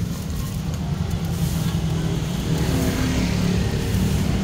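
Low, steady engine rumble of a motor vehicle running close by, growing a little louder toward the end.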